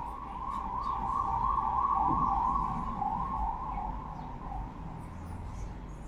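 A siren warbling up and down, growing louder for about two seconds and then fading away.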